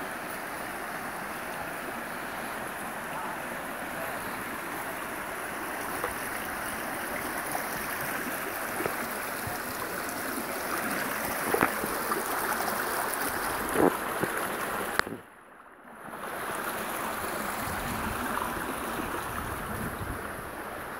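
Manitou River's shallow rapids rushing steadily over rocks. The sound cuts out for about a second near the middle and then comes back, and a couple of faint knocks come a little before that.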